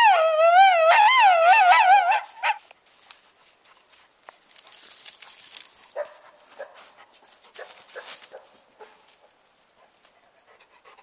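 Coyotes howling and yipping in a wavering, warbling chorus that breaks off about two seconds in, followed by faint scattered sounds.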